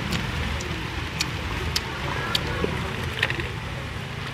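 Fresh herb leaves crinkling and ticking as a piece of fried tofu is wrapped and held in the fingers, a handful of sharp little crackles about half a second apart, over a steady low rumble.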